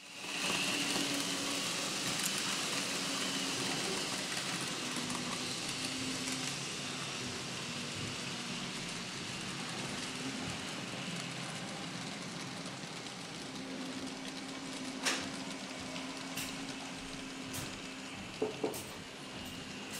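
N scale model trains running on the track: a steady rolling hiss of small wheels on rail with a low hum that comes and goes, loudest in the first few seconds as a long piggyback train passes close by. A few sharp clicks come in the last few seconds.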